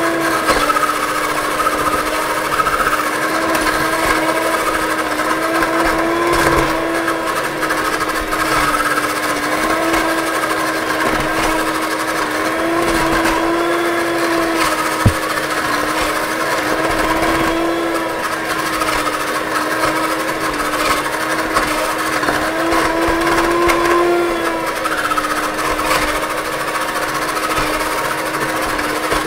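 Electric hand mixer running steadily, its beaters whisking thick chocolate cake batter in a bowl. The motor hum rises a little in pitch now and then. There is one short click about halfway through.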